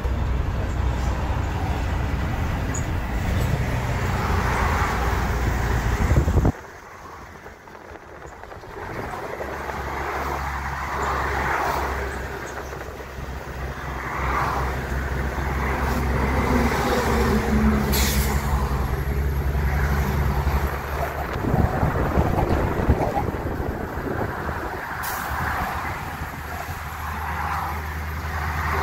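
Double-decker tour bus under way, heard from inside its upper deck: a steady low engine and road drone. The level drops suddenly about six and a half seconds in and builds back up over the next few seconds.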